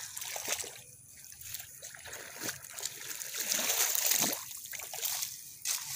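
Wet mud and water splashing and sloshing as a long-handled spade digs into a flooded paddy field and heaps mud onto the field bund. The splashing is loudest in a longer stretch about halfway through.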